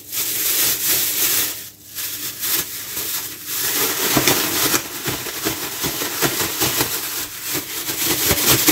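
Thin plastic bag rustling and crinkling as fish are dropped in and shaken in corn flour to coat them, with a brief pause about two seconds in.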